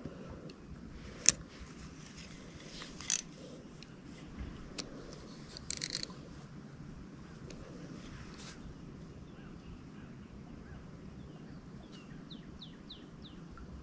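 A few sharp clicks and knocks of a fishing rod and spinning reel being handled, the loudest about a second in, over a quiet outdoor background. Near the end a bird gives four quick falling chirps.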